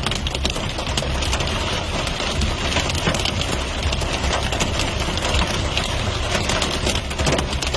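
Heavy rain coming down steadily, a dense patter of drops striking a surface, over a low rumble.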